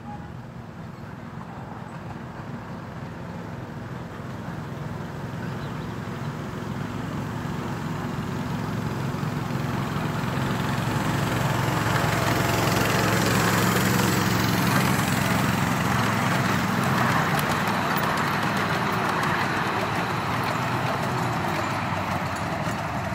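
Miniature railway locomotive and passenger coaches approaching, the locomotive running steadily and the wheels rumbling on the rails. The sound grows louder, is loudest about halfway through, then eases slightly as the train passes.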